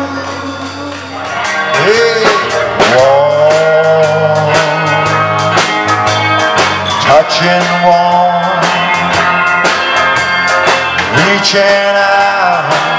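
Live rock-and-roll band playing: electric guitar and bass guitar over a drum kit keeping a steady beat, with a man singing.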